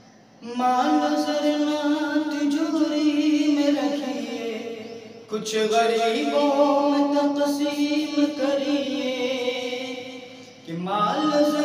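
A man's voice singing an Urdu devotional kalam unaccompanied, in long held, wavering notes. It comes in three phrases, each starting loud and fading: the second begins about five seconds in and the third just before the end.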